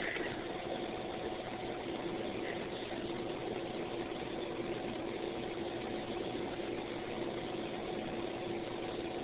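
Steady mechanical hum with a constant pitch, holding level with no distinct events.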